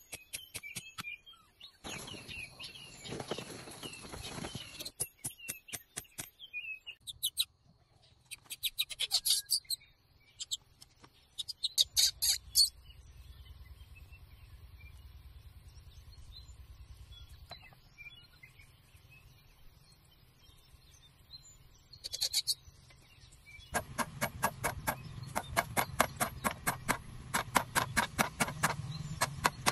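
Claw hammer tapping nails into green bamboo slats: quick runs of light, evenly spaced blows at the start and again through the last six seconds. In between come a stretch of rustling noise and a few short high-pitched bursts.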